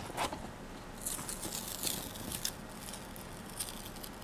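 Paper being peeled slowly off the sticky cutting mat of a Silhouette Portrait plotter: a faint crackling rustle, loudest from about one to two and a half seconds in.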